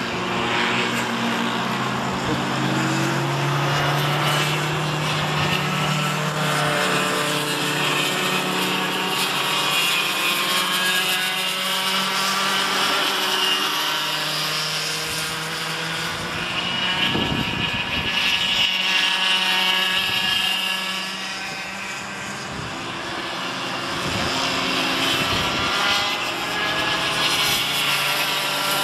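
Several cadet racing go-kart engines buzzing at high revs as the karts lap the circuit. Their overlapping pitches rise and fall as they accelerate and back off through the corners, briefly fainter about three-quarters of the way through.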